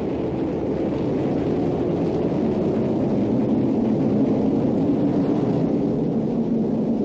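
Atlas V rocket climbing seconds after liftoff, its main engine and solid rocket boosters burning: a steady, low rumble.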